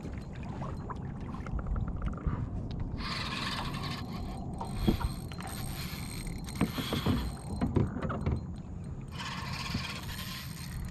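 Fishing reel being worked, with two spells of mechanical whirring each about a second long and a few knocks in between.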